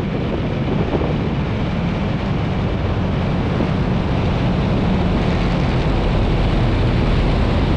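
Ultralight airplane's engine and propeller running steadily with heavy wind rush on the microphone, as the plane comes in to land.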